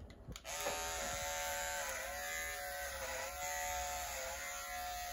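Electric hair clipper switched on about half a second in and running steadily as it is pushed through thick curly hair, its hum dipping slightly in pitch now and then.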